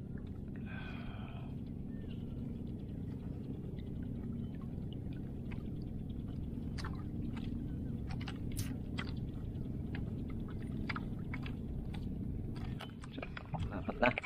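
Steady low rumble of water around a small outrigger boat at sea, with scattered light clicks and taps.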